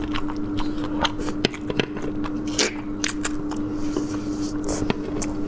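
A person biting and chewing a sushi roll close to the microphone, with many short sharp clicks of the mouth. A steady low hum runs underneath.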